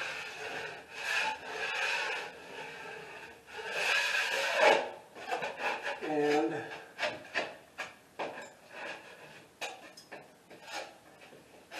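Steel drywall knife scraping half-dried joint compound on a ceiling: a run of rasping strokes for about five seconds, then sparser short scrapes and clicks. The compound is still gray and not fully set, which is what lets it scrape off easily.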